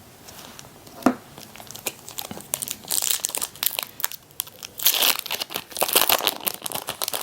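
A foil trading-card booster pack being torn open and crinkled: a sharp tap about a second in, then bursts of crinkling and tearing wrapper.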